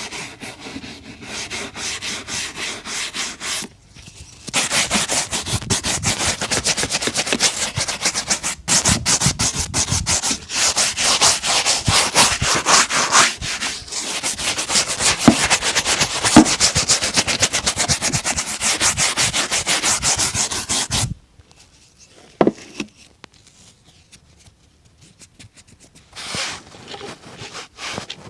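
A shoe brush scrubbing a boot in rapid back-and-forth strokes. It pauses briefly about four seconds in, resumes louder, and stops abruptly about three quarters of the way through, leaving only a few faint handling sounds.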